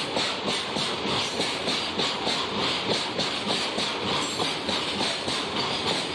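Loaded freight wagons rolling past at speed: steel wheels clattering rhythmically over rail joints over a steady hiss of wheels on rail.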